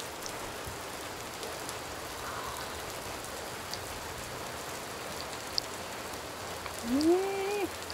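Steady rain falling, with a few faint ticks of single drops. About seven seconds in, a man's voice gives one short sound that rises in pitch.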